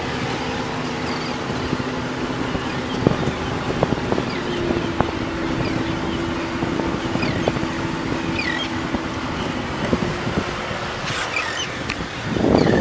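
Motorboat engine running at low speed, a steady hum that shifts pitch about four and a half seconds in, under wind noise. There are a few faint short high chirps and small clicks, and a louder rush of noise near the end.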